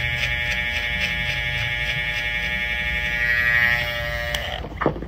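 Cordless hair trimmer buzzing steadily as it cuts hair, a little louder about three and a half seconds in, then switching off about four and a half seconds in. A short sharp knock follows near the end.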